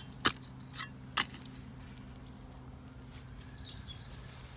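A bird chirps briefly, a short run of falling high notes, a little past three seconds in, over a steady low hum. Two sharp clicks come near the start, the louder about a second in.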